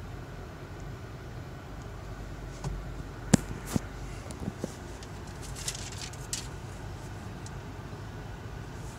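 Steady low road rumble of a moving car heard from inside the cabin. Two sharp clicks come a little over three seconds in, followed by a few fainter ticks.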